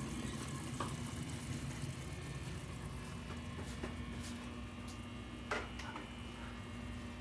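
Pot of coconut-milk curry simmering on the stove with a faint, steady bubbling, a few light clinks, and a steady low hum coming in about two to three seconds in.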